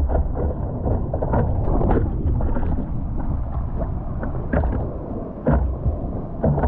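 Ocean water sloshing, with irregular splashes and wind rumbling on a muffled action-camera microphone.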